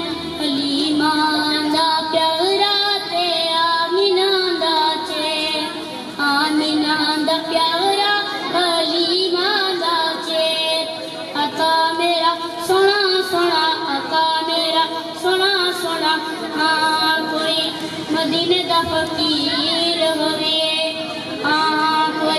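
A boy singing a naat solo into a microphone, one voice with no instruments, in long held phrases that bend and waver in pitch.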